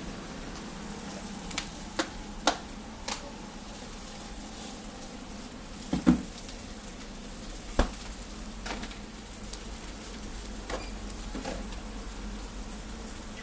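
Egg pancakes sizzling on a hot flat-top griddle, with a handful of sharp clicks and taps from metal tongs and a spatula on the steel, the loudest about six seconds in.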